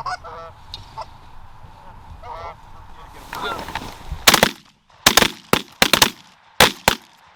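Canada geese honking, followed from about four seconds in by a rapid volley of shotgun blasts, several shots in quick succession.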